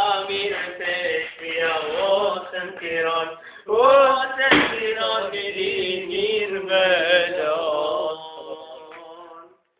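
A man singing an Albanian folk song: a drawn-out, wavering melody with long held notes. He breaks off briefly about three and a half seconds in, then the singing fades out near the end.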